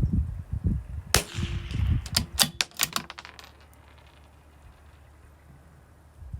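A single .22 rimfire shot from a CZ457 bolt-action rifle about a second in, followed by a quick run of sharp metallic clicks as the bolt is worked to eject the case and chamber the next round. Gusty wind buffets the microphone in the first few seconds.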